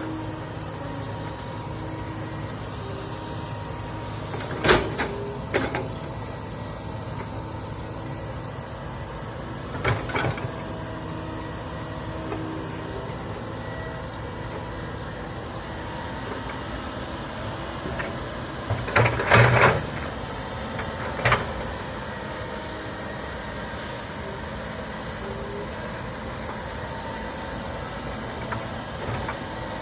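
Komatsu hydraulic excavator's diesel engine running steadily, broken by a few sharp knocks from the machine at work, the loudest a quick cluster about two-thirds of the way through.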